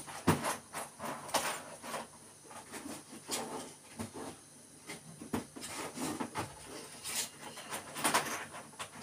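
Scattered clicks, knocks and rustles of small objects being handled and rummaged through, irregular and uneven in loudness.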